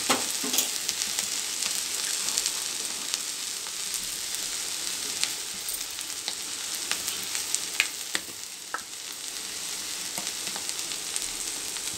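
Ponnaganti greens and chana dal frying in a kadai: a steady sizzling hiss with scattered light crackles.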